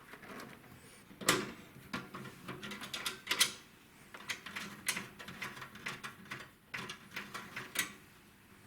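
Irregular clicks, taps and plastic rattles of computer parts and cables being handled and fitted during a PC build, with a few sharper knocks among them.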